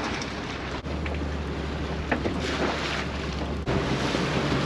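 Fishing boat's engine running steadily under way, with wind buffeting the microphone and water noise. The engine's low note changes about a second in and again near the end.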